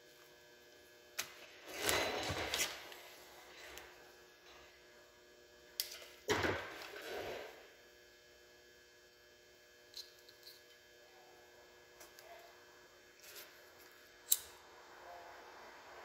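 Hands working the wires of an automotive engine wiring harness: rustling of the wires and loom, with louder handling about 2 and 6 seconds in and a few small clicks, the sharpest near the end. A steady mains hum runs underneath.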